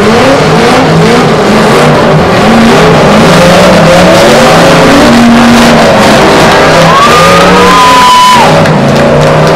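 Several demolition derby cars' engines running and revving together, loud and distorted. A brief high squeal comes about seven seconds in.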